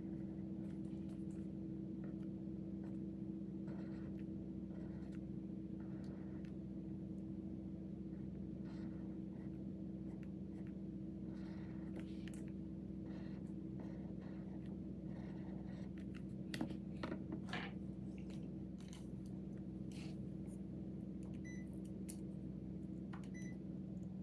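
Quiet desk work sounds of doing homework: scattered light clicks, taps and paper rustles, with a cluster of sharper taps about two-thirds of the way in. A steady low electrical hum runs under them.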